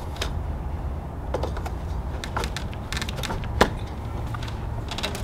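A few clicks and knocks as a plug-in receptacle tester is pushed into an outdoor outlet under its weatherproof cover, the sharpest click about three and a half seconds in, over a steady low rumble.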